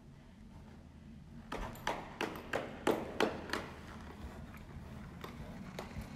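A person clapping, about eight claps at roughly three a second, each ringing briefly off the hall's walls. Fainter ticks and a low steady hum follow.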